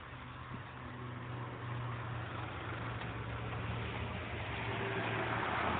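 A Peugeot car's engine running, with road noise, heard from inside the cabin. It is a steady low hum that grows gradually louder.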